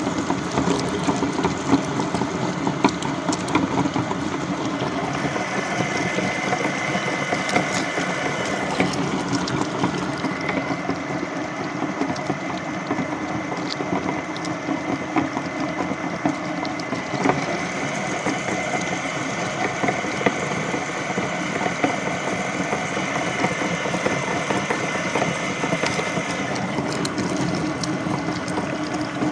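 Flywheel meat grinder grinding tomatoes: a steady mechanical running with small clicks from the turning auger, and wet squelching as tomato pulp is forced through the perforated plate.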